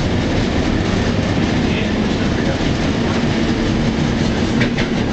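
PCC streetcar running along the track, heard from inside the cab: a steady rumble of wheels on rail with a steady low hum underneath, and a few short clicks near the end.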